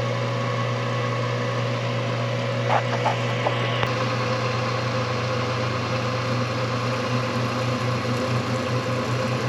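Milling machine running steadily with an even hum, with a few light clicks about three seconds in.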